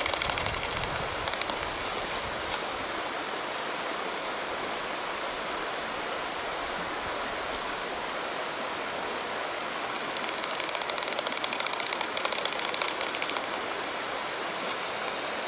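Daubenton's bat echolocation calls heard through a heterodyne bat detector tuned to 35 kHz: runs of rapid, dry clicks over a steady hiss. One run comes at the start and another from about ten to thirteen seconds in, as bats hunt over the water.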